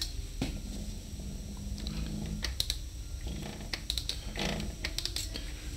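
Scattered light clicks and taps of tools and engine parts being handled, with a faint low hum that comes and goes.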